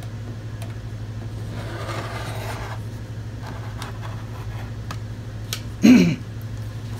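Rotary leather cutter's blade rolling along a steel ruler through cowhide, a soft rasping cut about two seconds in, over a steady low hum. Near the end comes a brief vocal sound that falls in pitch, the loudest thing here.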